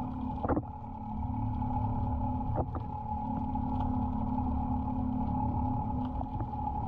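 The boat's engine heard underwater as a steady droning hum at two held pitches over a low rumble, with a few sharp clicks and knocks from the trap and rope as the fish trap is hauled up.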